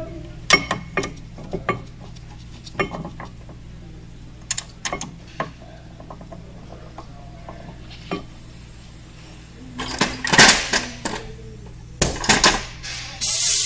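Metal clinks and light knocks of steel tools and bolts against the rear brake caliper bracket and knuckle, then louder clattering bursts of metal near the end.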